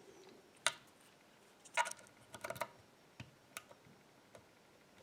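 Small, sharp clicks of a lock pick working the spool pins of an AGB dimple lock cylinder under tension, scattered and irregular, with a small cluster about two and a half seconds in.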